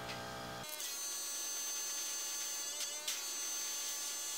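A small airbrush compressor runs steadily with a high whine, starting under a second in, while air hisses from the airbrush as it sprays the gold base coat onto a crankbait. There is a brief louder burst about three seconds in.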